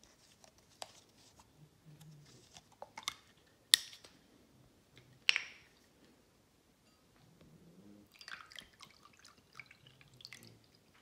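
A few sharp clicks and crackles as the plastic water bottle is handled, then water pouring from it into a small glass bowl, a light trickling patter over the last few seconds.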